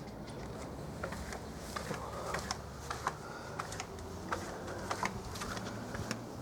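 Irregular sharp clicks and ticks, several a second, over a low steady hum.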